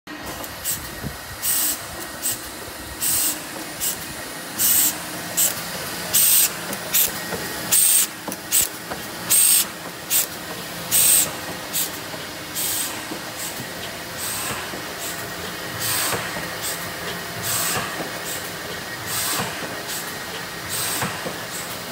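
A 40-inch automatic platen die-cutter running at about 2500 sheets an hour, cutting 2 mm jigsaw-puzzle board. A steady mechanical hum is broken by a sharp hiss of air about every one and a half seconds, once per sheet cycle, with a softer hiss between. The hisses grow fainter in the second half.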